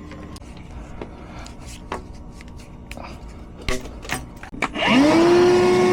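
A few light clicks and knocks of handling, then about five seconds in a wet/dry shop vacuum starts. Its motor whine rises quickly and settles into a steady high pitch as it sucks out the air conditioner's condensate drain line.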